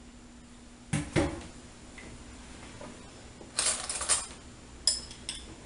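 Pots and dishes clattering at a stainless kitchen sink: two knocks about a second in, a short clatter a little past halfway, then two ringing clinks near the end.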